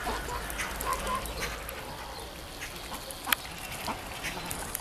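A few short calls from domestic waterfowl, geese and ducks, in the first second or so. Scattered small clicks follow, with one sharp click a little over three seconds in.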